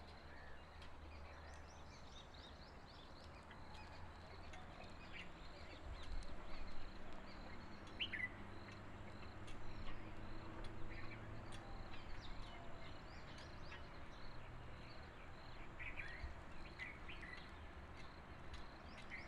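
Faint outdoor ambience: a low steady rumble with scattered short bird chirps and a high chirp repeating about every half second.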